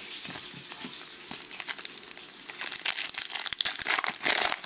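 Foil wrapper of a trading-card pack crinkling as it is handled and opened. The crackles start sparse and grow denser and louder from about a second and a half in.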